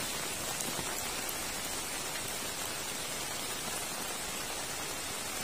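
Steady rain falling, an even hiss with no pauses.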